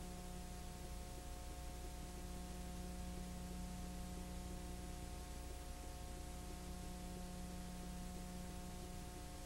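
Steady electrical hum with a few fixed tones over a constant hiss, unchanging throughout: the background noise of a silent film transfer with no soundtrack of its own.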